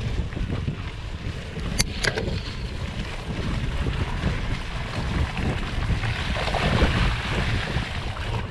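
Wind buffeting on the camera microphone and the rumble of a mountain bike jolting over a rutted, muddy grass track, with two sharp clicks about two seconds in. A louder hiss of tyres through wet mud and water comes around six to seven seconds in.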